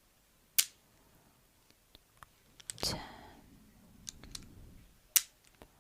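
Close-up clicks from a pliers-like hand tool being worked: two sharp clicks, about half a second in and near the end, with a cluster of softer ticks around the middle.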